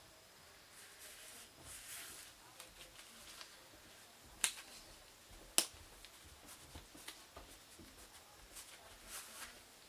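Faint rustling of leather driving gloves being handled and turned over, with two sharp clicks, about four and a half and five and a half seconds in.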